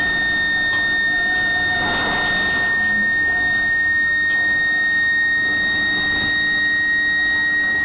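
Medium-frequency induction heating coils and their power supply giving a steady, high-pitched whine while heating a steel slab, over a rumbling haze of roller-line machinery.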